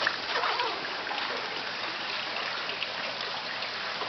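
Steady running, trickling water, with a few small splashes.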